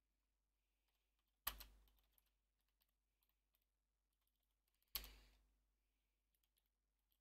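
Faint typing on a computer keyboard, scattered soft key clicks. Two louder sharp knocks stand out, about a second and a half in and again near five seconds.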